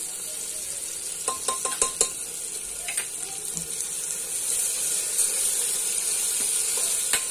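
Onions frying with a steady sizzle in a pressure cooker as a spoonful of green chilli, coriander and mint paste is stirred in. A quick run of metallic spoon clicks against the pot and bowl comes about a second and a half in, with another click near the end.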